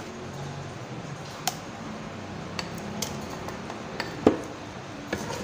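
Wooden spatula tapping and knocking against a non-stick pot as ground onion is put into hot oil: about five sharp clicks, the loudest a little past four seconds, over a faint steady hiss.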